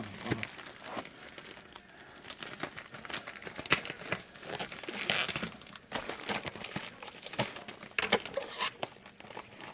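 Packaging being handled and opened, with irregular crinkling and rustling and scattered sharp crackles throughout.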